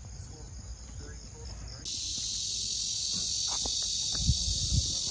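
Cicadas buzzing: a dense, steady high-pitched hiss that comes in suddenly about two seconds in, over fainter insect noise and a low rumble.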